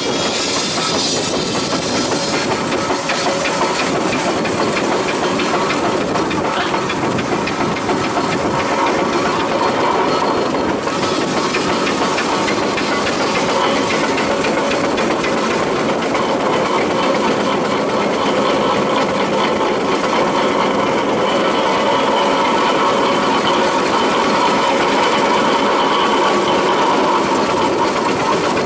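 Ruston & Hornsby steam traction engine running, a steady mechanical clatter mixed with the hiss of steam, the hiss louder in the first second or so.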